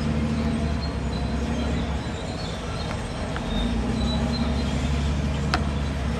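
Diesel engine of a tracked earthmoving machine running under load, easing off for a moment in the middle and picking up again, with faint high metallic squeaks from the tracks and one sharp click near the end.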